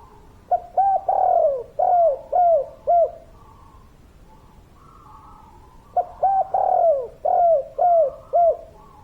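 Spotted dove cooing: two song phrases of about six short notes each, a few seconds apart. Fainter, higher bird calls fill the gaps between them.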